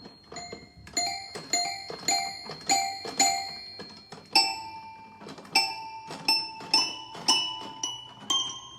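A small tuned instrument with a bell-like ring, struck one note at a time. In the first half it repeats a short figure about every 0.4 s; from about halfway on, slower single notes climb step by step in pitch.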